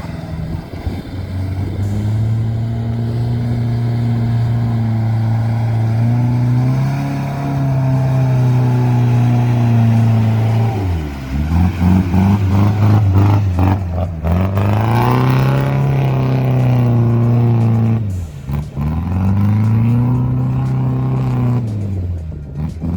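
Off-road 4x4 engine revving hard under load, held high and then dropping away and climbing again about four times, as when it is driven through mud.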